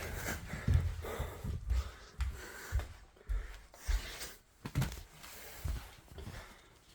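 A person breathing heavily, hot and sweating, with soft low thumps about once or twice a second.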